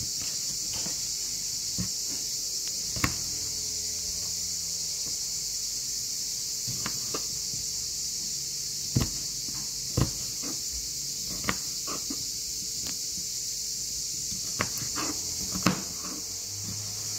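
Kitchen knife cutting a red bell pepper on a plastic cutting board: scattered sharp taps of the blade striking the board, a few seconds apart and more frequent in the second half.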